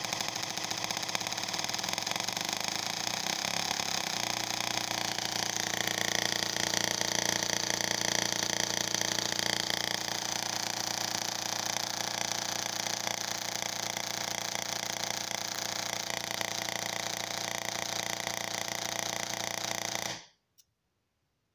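Push-pull solid-state Tesla coil firing sparks into the air from its breakout point, a steady pitched buzz set by its 555-timer interrupter. The tone changes about four seconds in and brightens for a few seconds after that, then cuts off suddenly near the end.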